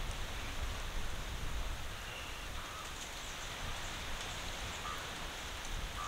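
Steady outdoor ambience: an even hiss over a low, uneven rumble, with a few faint short chirps.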